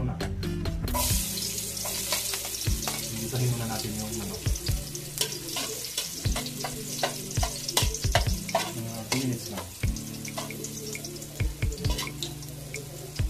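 Minced garlic sizzling in hot cooking oil in an aluminium wok, the sizzle starting suddenly about a second in as the garlic goes into the oil, with frequent clicks and scrapes of a metal spatula stirring it against the wok.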